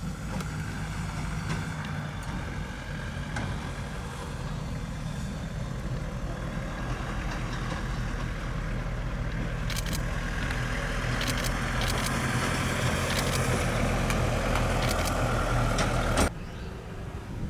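An engine running steadily with a low hum, growing louder over several seconds with a few clicks on top, then cutting off abruptly near the end.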